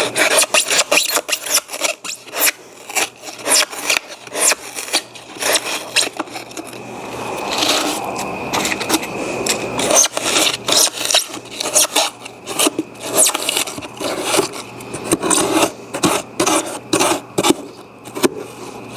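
Carving knife scraping and cutting into the rigid foam of a taxidermy form, a quick, irregular run of scratchy strokes as the foam is shaved out of a hole.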